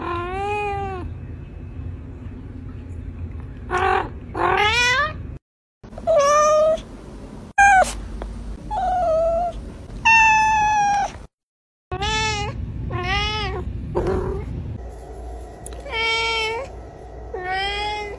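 Domestic cats meowing over and over: about a dozen separate meows with arched, bending pitch, from several different cats, broken twice by short silences.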